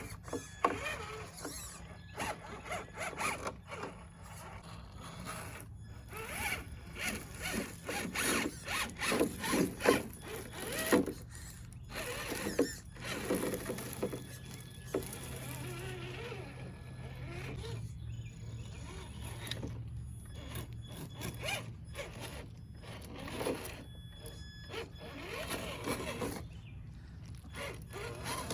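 Traxxas TRX-4 RC rock crawler's electric motor and geared drivetrain whirring in short stop-start bursts, with scuffs and knocks as it crawls over the ground.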